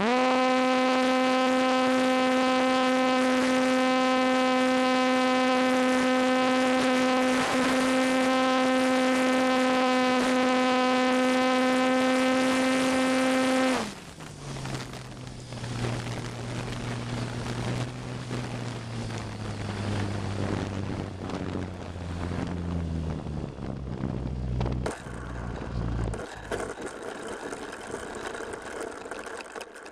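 Onboard sound of a ParkZone T-28 RC plane's electric motor and propeller running at a steady high-pitched whine. About 14 seconds in the throttle is cut back and it drops to a lower, wavering drone that steps down further as the plane comes in to land.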